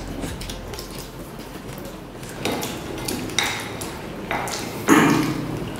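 Mealtime tableware sounds: a serving spoon clinking and scraping in a glass bowl, with scattered light clicks of plates and hands, and the loudest clatter near the end.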